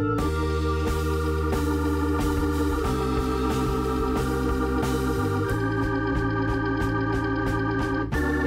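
Background music: sustained keyboard chords over a steady beat, changing chord a few times.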